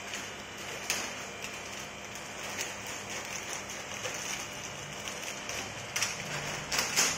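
Aquarium aeration bubbling and splashing in the fish tanks: a steady watery hiss with a few short, louder spatters about a second in and near the end.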